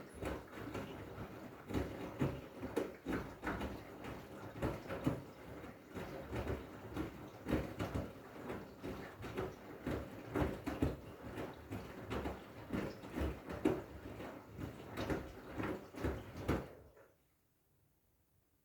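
Washing machine drum turning with a load of blankets: a run of irregular thuds and swishes, several a second, that stops about seventeen seconds in as the drum comes to rest.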